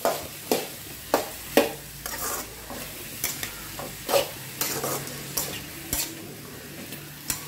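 Metal spatula stirring and scraping diced chayote around an aluminium kadai, in repeated uneven strokes, over a light sizzle of the vegetables frying in oil with onions.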